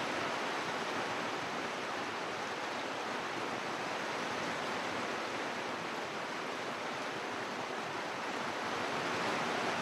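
Heavy rain falling steadily in big drops, a continuous even hiss that swells slightly near the end.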